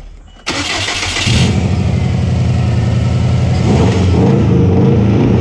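A 2002 Subaru WRX's turbocharged flat-four is cranked over about half a second in, catches within a second and runs on at idle. It is misfiring, a fault the owner traced to a failed idle air control valve.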